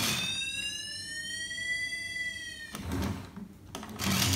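Electronic siren sound effect from a battery-powered toy fire truck: one pitched tone that rises and then falls over about two and a half seconds, followed about three seconds in by a short noisy burst.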